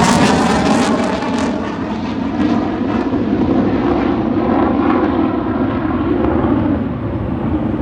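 Loud jet noise from a departing twin-engine F-15 fighter, a dense steady roar whose high hiss fades from about a second in as the aircraft moves away, while the deep rumble carries on.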